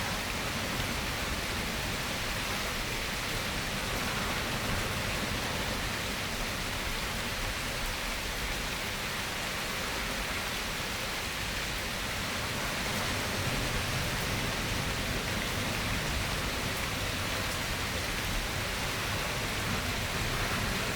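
Steady tropical rain falling, an even, unbroken hiss with faint scattered drop ticks.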